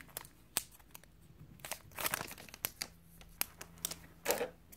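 A Naruto CCG booster pack wrapper crinkling and tearing as it is opened by hand, in short scattered crackles with a longer rustle near the end.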